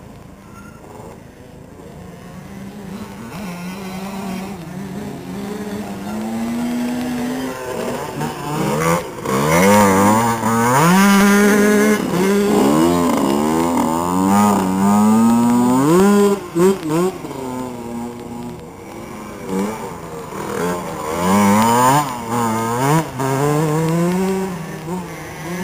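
Small youth motocross bike engine revving hard, its pitch climbing and dropping again and again through the gears as it rides a corner. It grows from faint to loud, loudest about halfway through as the bike passes close, with another loud surge near the end.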